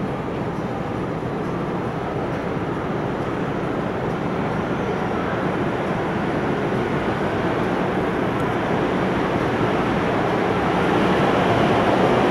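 MTR M-Train running empty through the tunnel, approaching at speed to pass the platform without stopping: a rumble that grows steadily louder as it nears.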